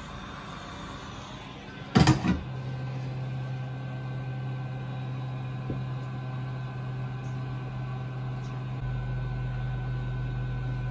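A short clatter of knocks about two seconds in, then a steady low electrical hum starts and runs on, with a deeper hum joining near the end.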